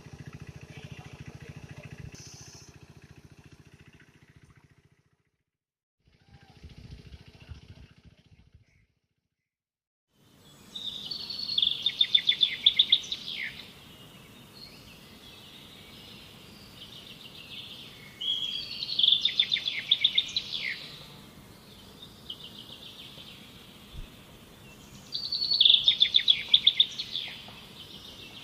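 A songbird sings a loud trilled phrase three times, about seven seconds apart, over a steady outdoor hiss. Before it starts, about ten seconds in, there is only a fainter low hum broken by quiet gaps.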